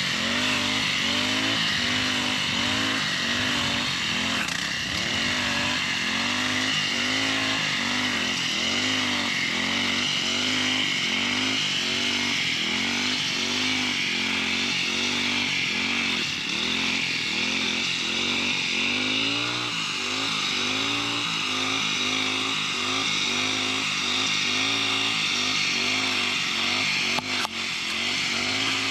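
Brush cutter engine running steadily, its pitch dipping and recovering in quick, regular sweeps as the blade swings through grass. A short click near the end.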